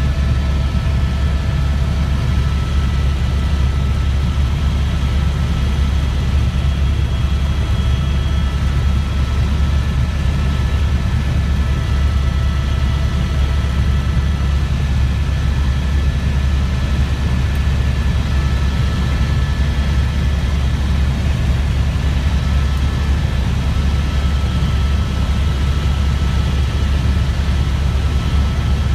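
Helicopter rotor and turbine heard from inside the cabin: a loud, steady low drone with a faint steady whine above it.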